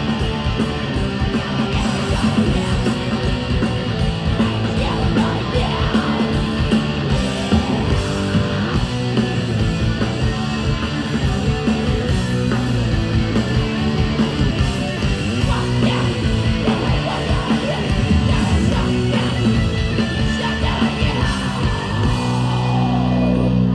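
A heavy band playing live: distorted electric guitars, fast pounding drums and yelled vocals, loud and dense, heard from the crowd through a phone microphone. It cuts off suddenly at the end.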